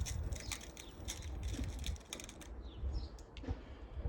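Many small irregular clicks and rattles of handling, over a low wind rumble on the microphone, with a few faint bird chirps.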